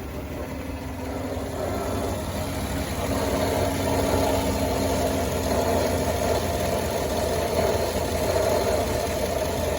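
2016 GMC Yukon's 5.3-litre V8 idling with a failing Gates water pump, whose bearing sounds like a bunch of marbles rolling around in there, growing louder over the first few seconds and then holding steady.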